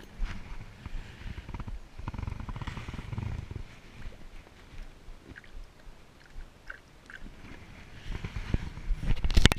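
Water sloshing and handling noise close to the microphone as a pike is slipped back into the water by hand, with a loud knock near the end.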